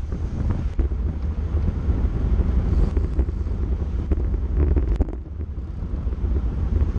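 Wind buffeting a bike-mounted camera's microphone as a road bike rolls at about 40 km/h, a steady low rumble with a few faint knocks. It eases briefly about five seconds in.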